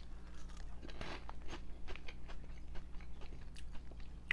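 A person chewing and crunching cinnamon-flavoured Cheetos Sweetos puffs, in many short, irregular crisp crunches.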